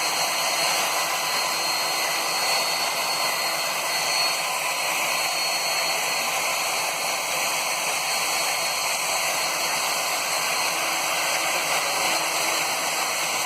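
Nitto Kohki magnetic-base drill's motor running steadily, a constant even whirring hiss.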